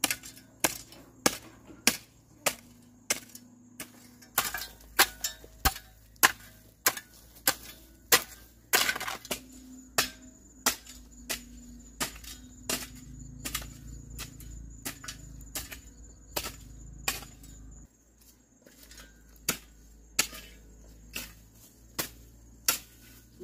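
A hoe chopping into dry, grassy earth over and over, about two sharp strikes a second.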